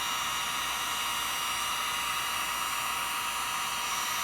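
Electric heat gun running steadily, blowing hot air to melt butter in a cup: an even, airy hiss with a faint high motor whine.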